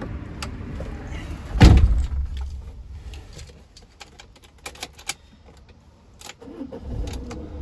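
A van cab door shuts with a heavy thud about a second and a half in, followed by a few small clicks and key jangles at the ignition. Near the end the Peugeot Boxer's diesel engine cranks and starts, with the dash warning lights on at the start-up.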